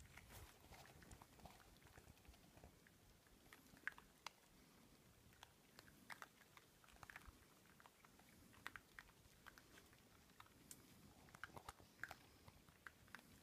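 Faint, scattered crunching and clicking of feral piglets chewing feed, with no steady rhythm.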